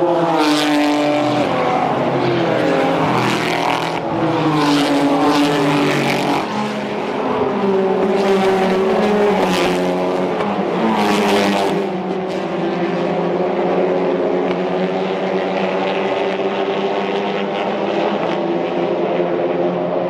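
A pack of race cars running through a corner, several engines at once, their pitch falling and rising as they brake, shift and accelerate. Individual cars pass close every few seconds.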